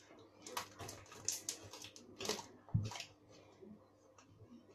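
Fluffy slime being squeezed and stretched by hand: a faint, irregular run of small sticky clicks and pops, with one soft thump about three seconds in.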